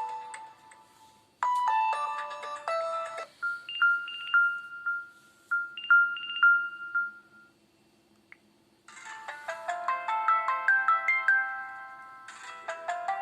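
LG Leon smartphone playing its built-in ringtones and message tones one after another. A short stepped synthetic melody is followed by a two-note chime repeated several times. After a short gap, a quicker, busier melody starts about nine seconds in.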